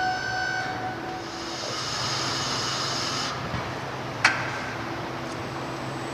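Steady mechanical hum with a high whine that stops about a second in, then a couple of seconds of hiss, and a single sharp click a little past the middle.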